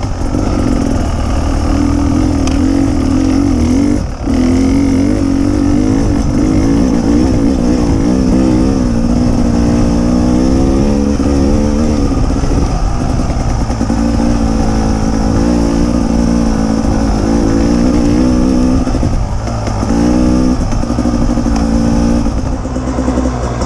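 Enduro motorcycle engine heard up close from on board, revving up and down with the throttle as the bike rides a trail. It has a brief drop in loudness about four seconds in.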